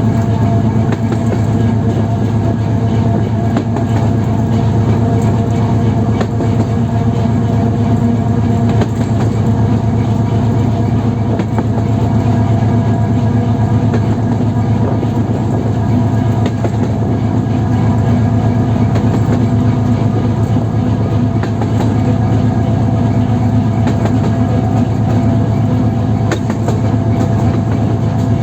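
Cab of a 2TE10M two-section diesel locomotive under way: the steady drone of its 10D100 two-stroke diesel engine, with the wheels knocking over the rail joints.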